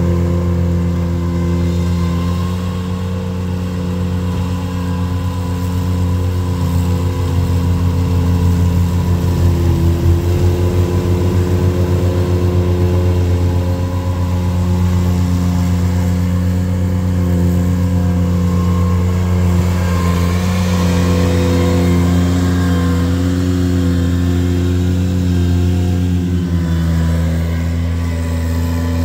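Compact tractor engine running steadily at working speed, its pitch shifting slightly as the machine, fitted with a front snowblower, clears snow.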